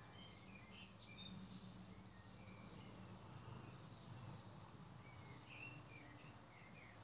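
Faint garden birdsong: short high chirps scattered throughout, over a low steady hum.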